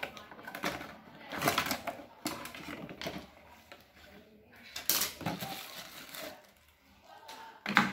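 A cardboard toy box being opened and its plastic parts handled and set down on a wooden table: rustling packaging with irregular clicks and knocks, the sharpest about five seconds in and just before the end.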